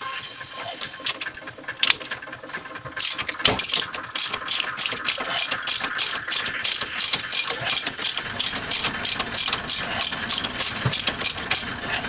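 Hand socket ratchet clicking in quick, even strokes, about four a second, starting about three seconds in, as it turns the bolts behind a front brake caliper.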